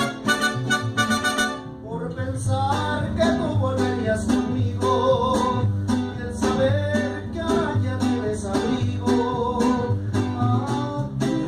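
Mariachi band playing: the trumpets hold a chord that cuts off about two seconds in, then strummed guitars and a bass keep an even rhythm under a sliding melody.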